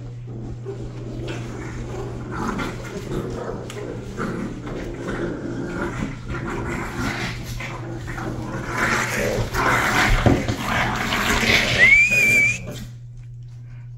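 Rottweiler puppies play-fighting: growling and scuffling that build up louder and then stop suddenly near the end, with one short high squeal just before.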